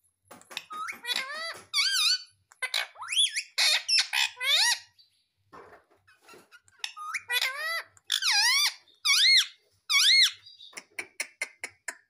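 Indian ringneck parakeet calling close up: a run of short calls that swoop up and down in pitch, mixed with quick trains of clicks, with a brief lull about halfway through.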